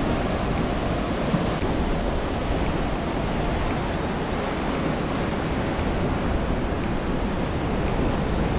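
Surf breaking and washing over a rocky, boulder-strewn shore: a steady rush of waves, with wind rumbling on the microphone.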